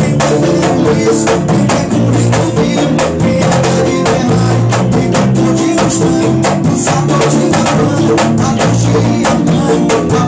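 Band music: a drum kit keeping a steady beat under guitar and repeating low notes.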